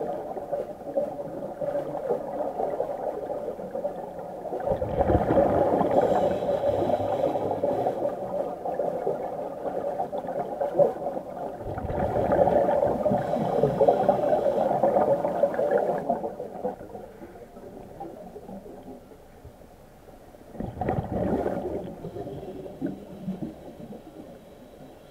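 Underwater bubbling and gurgling of gas escaping from a diver's IDA-59M rebreather outfit, heard through an underwater camera. There is a long, louder rush of bubbles from about a fifth to two-thirds of the way in and a short one near the end.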